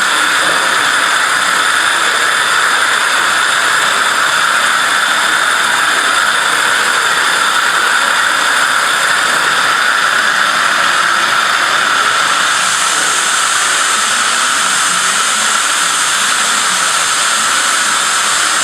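Abrasive waterjet cutter running: the high-pressure water jet gives a loud, steady hiss, turning sharper and brighter about twelve seconds in.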